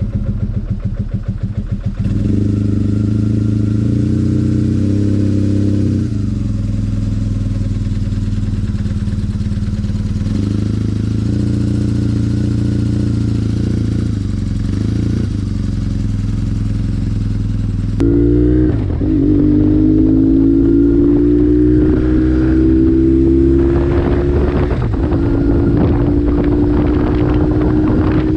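2002 BMW R1150GS Adventure's boxer twin running through a Two Brothers Racing full exhaust, with the catalytic converter replaced by a straight bypass pipe. It idles with a few short revs, then, about two thirds through, it is under way with the engine pitch climbing as it accelerates.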